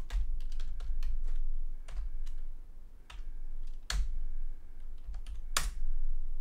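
Typing on a computer keyboard: irregular key clicks, with two louder keystrokes about four seconds in and near the end.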